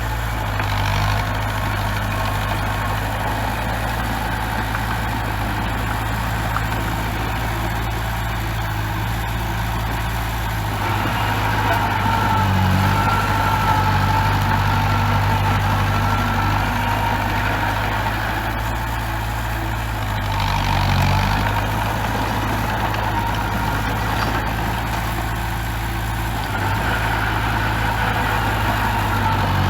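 Bulldozer's diesel engine running steadily, growing a little louder a few times, about twelve, twenty-one and twenty-seven seconds in.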